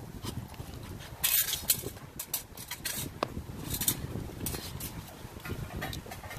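Bulldogge puppies chewing frozen raw fish, with irregular sharp crunches and clicks, the loudest a cluster about a second and a half in.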